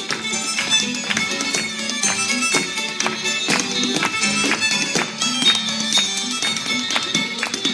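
Traditional fiddle tune with a step dancer's shoes tapping out quick, sharp, rhythmic beats over it.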